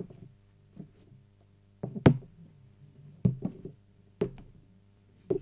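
A series of sharp knocks at an uneven pace, roughly one or two a second, each with a brief low ringing tail; the loudest comes about two seconds in. A faint steady low hum runs underneath.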